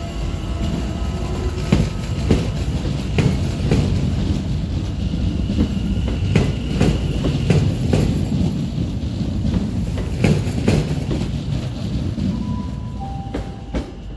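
London Overground Class 710 electric multiple unit pulling away, a low rumble broken by irregular sharp clicks as its wheels pass over rail joints and pointwork. The sound fades over the last couple of seconds as the train draws off.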